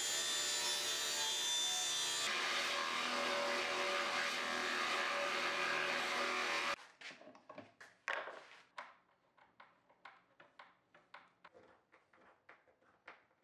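A table saw runs while cutting plywood. About two seconds in it gives way abruptly to a drill press boring a hinge-cup hole in plywood. The drill press stops suddenly about halfway through, leaving a scattering of light clicks and ticks as a hinge plate is screwed in with a hand screwdriver.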